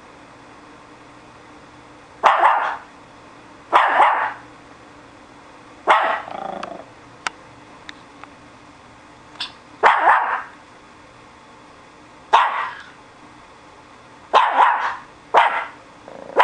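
Japanese Chin barking in single barks, one every one to two seconds with gaps between, about eight in all: alert, guard-dog barking.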